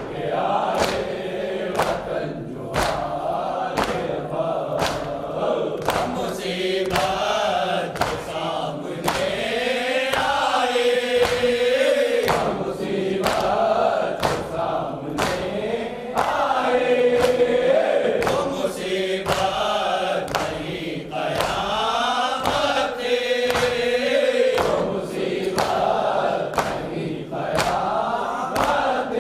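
A noha, an Urdu mourning lament: a man recites it into a microphone and a group of men chants along. Steady, rhythmic slaps of hands beating on chests (matam) keep the beat at about two a second.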